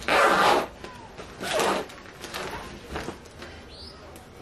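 Rustling and crinkling of a clear plastic zippered storage bag as a duvet is handled into it: a loud rustle at the start and another about a second and a half in, then lighter scuffs and small clicks of the bag's edges and zipper.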